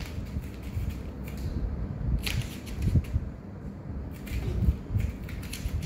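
Low indoor room rumble with a few soft, short knocks and clicks.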